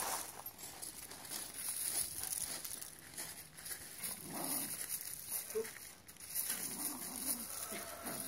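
A small dog making a few short low vocal sounds about halfway through and again near the end, over faint crunching of loose gravel as it noses at a stone.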